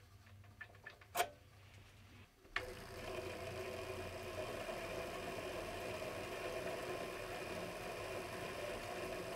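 A few light metallic clicks from a crank handle being handled on a steel spindle. About two and a half seconds in, a mini lathe comes in suddenly and runs steadily with an even motor whine while a threading insert cuts an M10 x 1 mm fine thread on the spindle.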